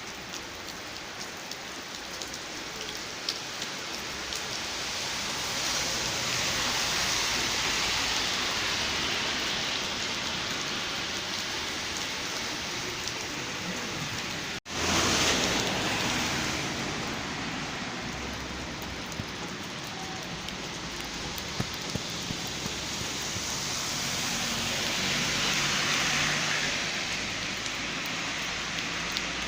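Steady rain falling, swelling heavier in waves, with scattered drops ticking. About halfway through it cuts out for an instant and comes back at its loudest.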